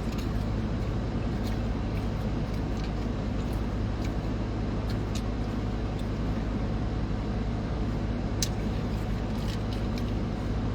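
Steady low rumble of a running motor, with scattered faint clicks and taps.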